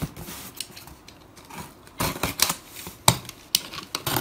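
A blade cutting through packing tape on a cardboard box: a few short scrapes and clicks, the longest about two seconds in, then several quick ones near the end.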